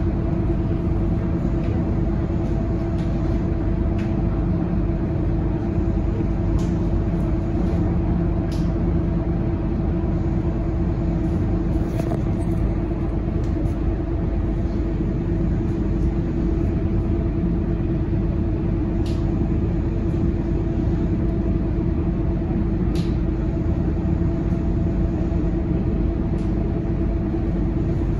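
Scania K230UB city bus's nine-litre five-cylinder diesel idling while the bus stands still, heard from inside the cabin as a steady low rumble and hum. A few faint ticks and rattles come over it.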